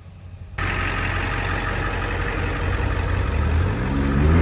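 Ford F-150 pickup's exhaust rumbling as the truck rolls up a gravel drive. Near the end the engine revs up and back down, which is the loudest moment.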